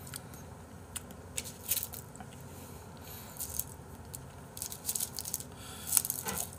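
Close-up eating sounds: wooden chopsticks handling raw beef and a sheet of dried laver, giving scattered small crinkly clicks and crackles that bunch up near the end.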